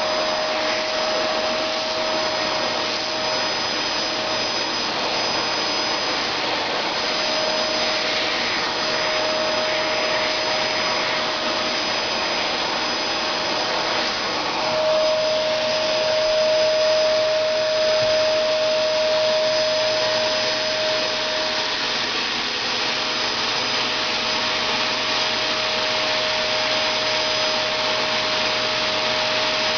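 Dyson Ball vacuum cleaner running steadily with a high whine, drawn over a cat's coat to groom it; the whine briefly fades and returns a few times.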